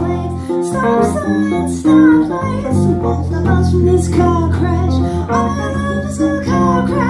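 Live band music: a woman singing over her own electric bass line, with a Roland keyboard accompanying.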